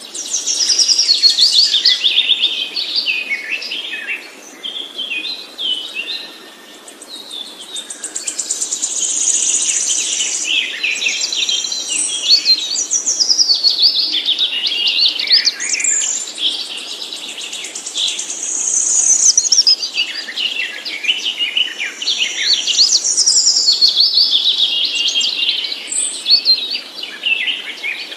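A songbird singing long, fast, varied songs of high chirps and trills, in bouts of several seconds broken by a few short pauses.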